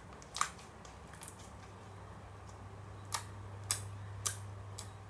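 Clear water slime being squeezed and pressed by hand, giving sharp wet clicks and pops: one shortly after the start, then four more in the last two seconds, irregularly spaced. A steady low hum runs underneath.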